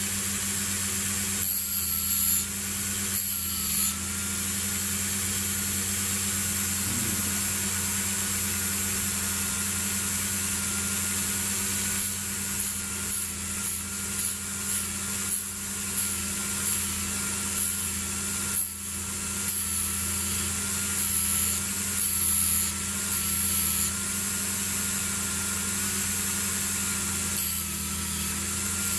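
Dremel rotary tool running steadily with a high motor whine, its felt polishing wheel rubbing against a small part in short, repeated bursts of scrubbing hiss.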